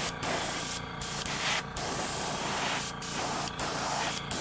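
Airbrush hissing as it sprays paint, with several brief breaks in the air flow.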